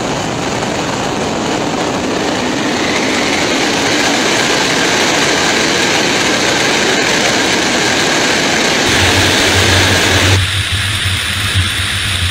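Loud rush of airflow and jet engine noise from inside an airliner's landing gear bay, the noise building a few seconds in. Near the end it changes abruptly to a steadier sound with a strong low hum.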